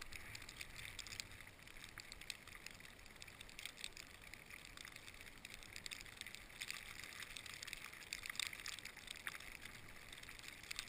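Skis sliding over snowy avalanche debris: a faint, even hiss with many small scratchy crackles.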